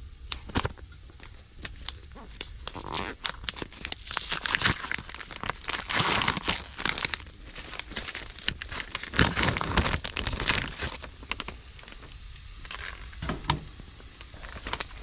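Irregular rustling and crinkling with scattered sharp clicks and knocks of things being handled and moved about, busiest in the middle stretch.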